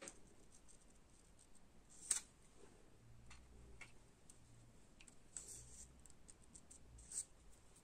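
Small scissors faintly snipping watercolour paper in short, scattered cuts. The clearest snips come about two seconds in and near the end.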